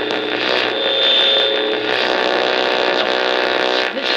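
Speaker of a National HRO-5TA1 tube receiver while its dial is swept across the 500 to 960 kilocycle broadcast band: steady static and noise with a buzzing hum, and a brief high whistle about a second in.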